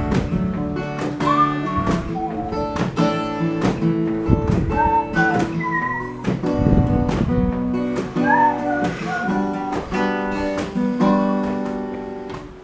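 Steel-string acoustic guitar strummed through an instrumental break, with a thin whistled melody over the chords.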